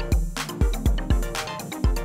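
Electronic background music with a drum-machine beat: deep bass-drum kicks that drop in pitch, with sharp hi-hat and snare hits between them.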